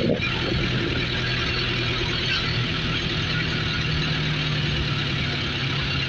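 Running engine and road noise heard from aboard a moving motor vehicle. The low engine hum rises slightly in pitch about halfway through.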